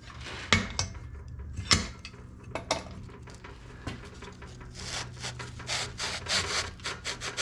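Cast-iron gear case cover being slid and shifted into position on a drill press table: scraping and rubbing of metal on metal, with a few sharp knocks in the first three seconds.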